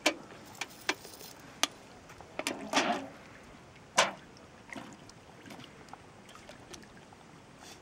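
A dog swimming and paddling through calm water: soft sloshing and lapping with a few short splashes, the sharpest about four seconds in.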